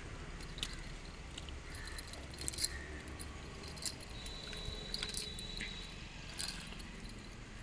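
A cast net being handled on muddy ground: scattered light clicks and clinks from its weighted edge and mesh, with no regular rhythm.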